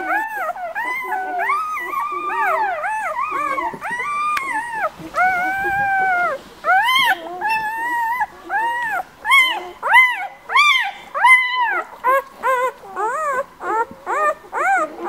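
Newborn White Swiss Shepherd puppies squealing and whining with high, rising-and-falling cries. The cries come thick and overlapping at first, then about halfway through they turn into separate, louder cries, one or two a second.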